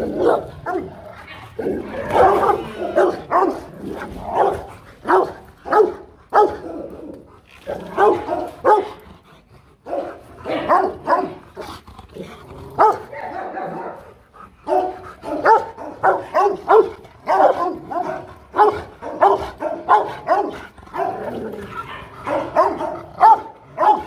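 Two Rottweilers barking at each other in quick runs of powerful barks with a couple of brief lulls: threat barking at a rival dog across a barrier.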